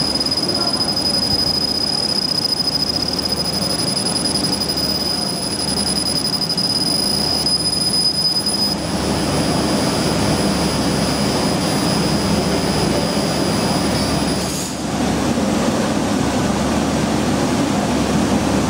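CO2 laser marking machine running as it marks leather: a steady rushing machine noise with a high, steady whine over it. The whine weakens a little past the middle and stops about three quarters of the way through.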